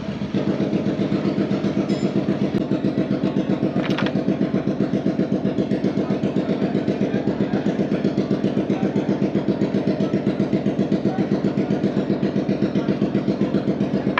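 Honda Foresight 250cc scooter's single-cylinder four-stroke engine idling with an even, steady pulsing beat, stepping up slightly in loudness just after the start. A brief click is heard about four seconds in.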